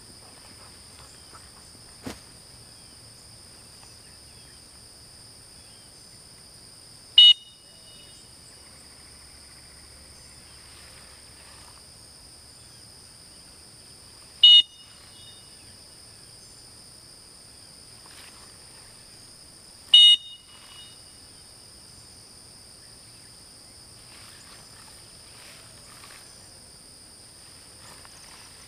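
Three short, sharp single blasts of a dog-training whistle, several seconds apart: stop (sit) whistles given to a retriever working out in the field, so she can be handed a directional cast.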